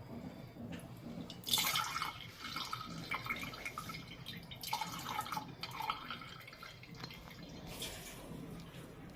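Lemon and mint juice being poured through a strainer, the liquid splashing and dripping in several uneven spurts.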